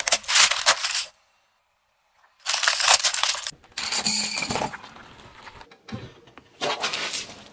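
Wooden coloured pencils cracking and splintering as a car tyre rolls over them, in several short bursts of sharp crunching with a silent gap of about a second and a half between the first and the second.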